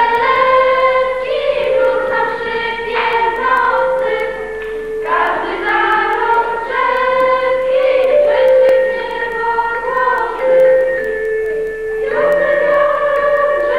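A choir of voices singing a slow melody in long held notes, heard through an old VHS tape recording.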